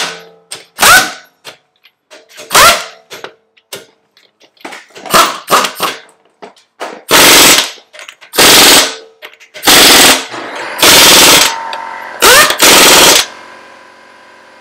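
Pneumatic impact wrench running lug nuts onto a pickup truck's wheel in a series of rattling bursts. The first bursts are short, and the ones in the second half are longer.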